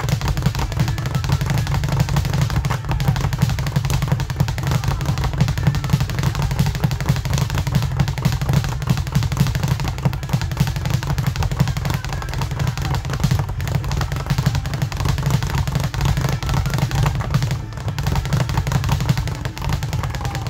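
Custom Bulg speed bag on an Arc Pro swivel being punched without a break, rebounding off the overhead wooden platform in a fast, unbroken patter of thuds.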